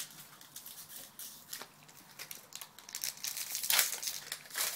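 Foil Yu-Gi-Oh booster pack wrapper being crinkled and torn open by hand: a run of sharp crackles that grows louder in the second half.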